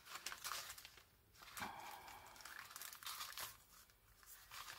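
Faint rustling and crinkling of paper and card being handled, in several short bursts with small clicks.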